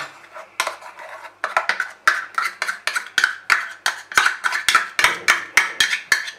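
Metal spoon tapping and scraping against a small plastic container to knock mustard paste out into the pan: a quick run of light, sharp clicks, about three or four a second, starting about a second and a half in.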